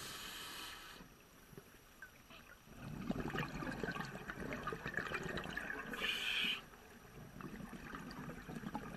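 Moving water sloshing and trickling, faint at first and fuller from about three seconds in, with a brief hiss a little past the middle.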